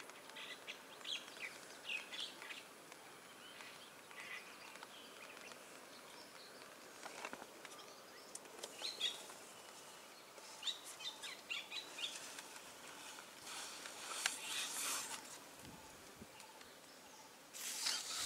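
Wild birds chirping with scattered short calls over a faint outdoor background. A few brief rustles come in the middle, and a louder rustling noise starts near the end.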